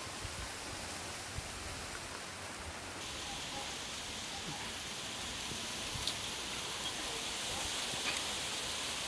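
Strong wind hissing through bamboo foliage, steady and even, growing a little stronger about three seconds in, with a few faint ticks.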